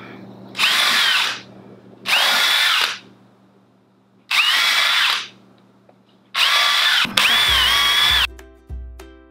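Cordless drill boring pilot holes through pine 2x2 cleats on a tabletop, in four separate runs. The motor whine rises as each run starts, holds steady, then drops away. The last run is the longest.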